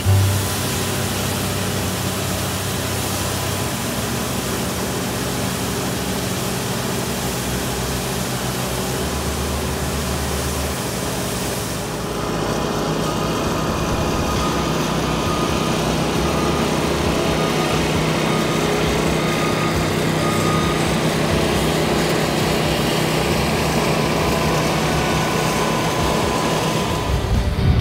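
Steady engine noise from pavement-maintenance machinery running. About twelve seconds in, the sound shifts to a different, slightly louder engine note with a steady hum.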